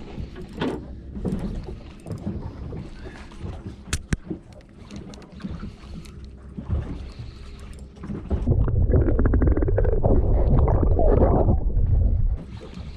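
Sounds of a small fishing boat on the water: scattered knocks and handling clicks, then from about eight seconds in a loud, low rumbling rush for about four seconds that cuts off suddenly.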